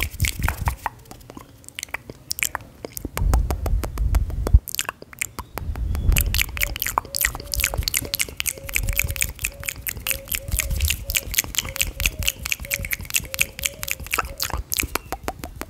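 Close-miked ASMR trigger sounds: hands working right over the microphone, giving rapid crisp clicks and taps at about six a second, with low rumbling thumps as the hands brush near the mic.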